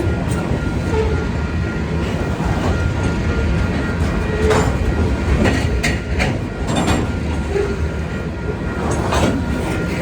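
Freight train rolling by: a steady low rumble of wheels on rail, with a few sharp clicks as the wheels cross rail joints.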